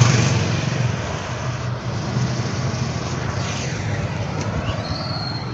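A motor vehicle engine running close by with road noise. It is loudest in the first second, then settles into a steady rush.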